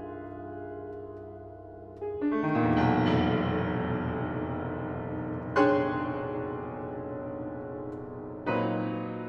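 Grand piano playing alone: chords struck and left to ring and fade, one about two seconds in spreading into a quick rising flurry of notes, then two more chords later on.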